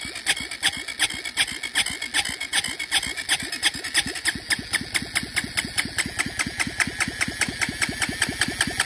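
The electric starter motor of a Honda CBF125's single-cylinder four-stroke engine cranking it over, out of the frame on a direct battery hookup, in a rapid, even rhythm that does not catch and fire. It is being spun to pump oil up into the top end, which is dry after the oil was drained and the engine sat.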